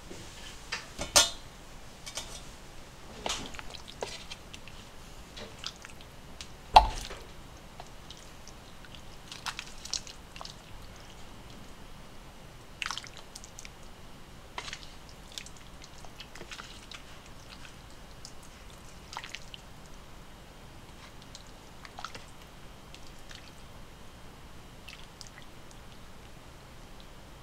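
A ladle knocking and clinking against a stainless steel pot and bowls as soup is ladled out, with broth splashing and dripping back. The knocks are scattered and irregular, the loudest about a second in and another about seven seconds in.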